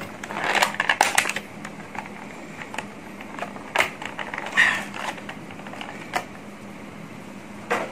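Clear plastic packaging film crackling and clicking as it is handled and pulled off a model airliner wing. The crackles come in irregular bursts, thickest in the first second and a half, then as sparse single clicks.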